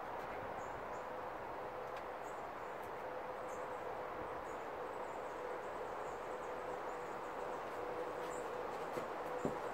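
Steady outdoor background noise with a faint steady hum and scattered faint high chirps, and a single soft thump near the end.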